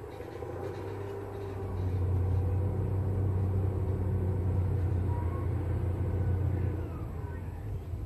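Low, steady engine drone of a passing motor, swelling about two seconds in, holding, and easing off a little near the end.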